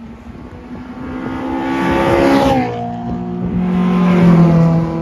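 Two cars accelerating past, about two seconds apart, each engine note dropping in pitch as it goes by. The second and louder one is a silver fifth-generation Honda Prelude with a four-cylinder engine.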